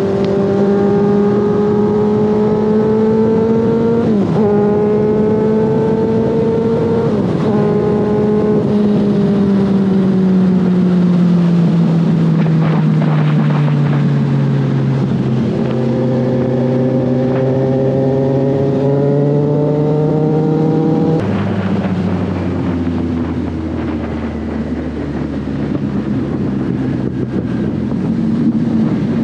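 Kawasaki Z1000's inline-four engine running at highway speed with wind rushing past. Its pitch climbs and dips as the throttle is worked, then drops suddenly about three-quarters of the way through as the bike slows down.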